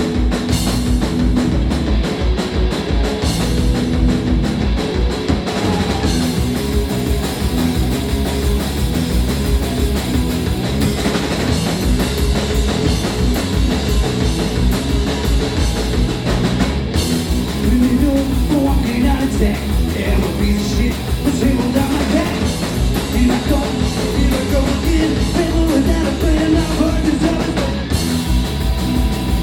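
Punk rock band playing live at full volume: electric guitars and a drum kit keeping a driving beat, with some singing in the mix.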